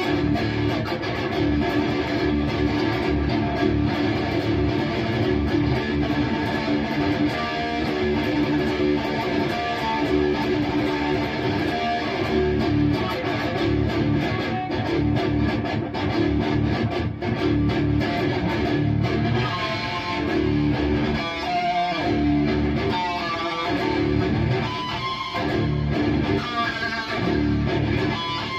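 High-gain distorted electric guitar through a Bogner Uberschall preamp, riffing with rhythmic palm-muted chugs on the low strings. Higher single notes ring out over the riff in the second half.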